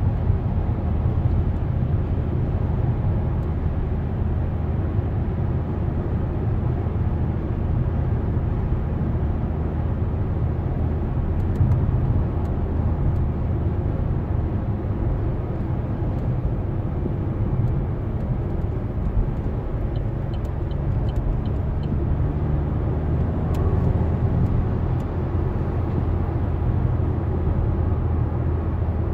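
Steady in-cabin driving noise of an Opel Insignia's 2.0-litre A20DTH diesel car cruising at about 90 km/h on the motorway: a low, even engine and tyre rumble. The engine is running with its diesel particulate filter mid-regeneration.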